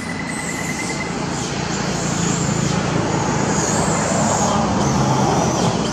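A motor vehicle's engine running, its low hum swelling in loudness and dropping off near the end.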